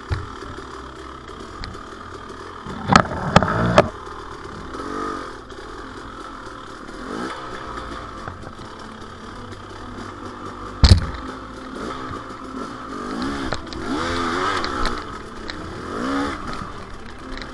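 KTM 300 XC-W two-stroke single-cylinder dirt bike engine ridden slowly through brush, its revs rising and falling in repeated blips. There is a cluster of sharp knocks and clatter about three seconds in and one loud knock a little past the middle.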